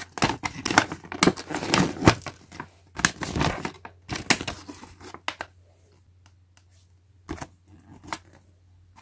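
A folded paper catalogue being unfolded and handled: a dense run of paper rustling and crackling for about five seconds, then only a couple of single rustles near the end.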